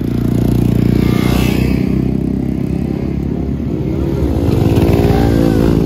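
Motorcycle engine running as the bike rides off. The engine pitch rises about four seconds in as it accelerates.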